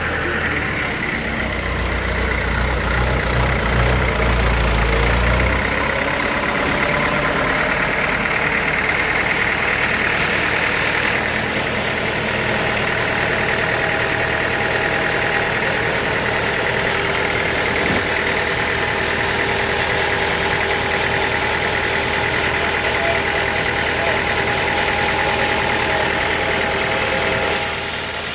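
Sawmill machinery running steadily: a motor's hum with a constant whine over it. About six seconds in, the low hum drops away as a tone rises slightly, and the machine then runs on evenly.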